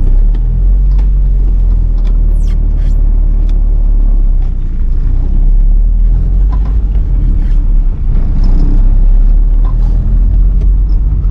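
A car driving: steady low engine and road rumble.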